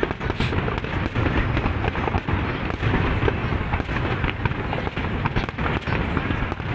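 Aerial fireworks display: a continuous barrage of shell bursts, with many sharp bangs and crackles over a steady low rumble.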